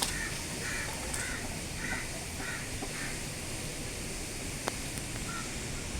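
A bird giving a series of short calls, about two a second, for the first three seconds, then two more near the end, over a steady outdoor hiss. A sharp click sounds at the start and another just before five seconds in.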